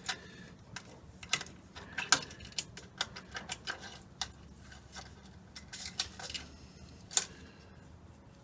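Light metallic clicks and clinks of hand work on the TH350 transmission's shift lever and the shifter cable, scattered and irregular, with two sharper clicks about two and seven seconds in.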